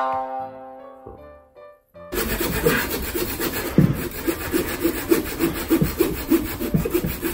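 A fading musical chord, then about two seconds in a handsaw starts cutting a green ginkgo log in steady back-and-forth strokes, about two to three a second.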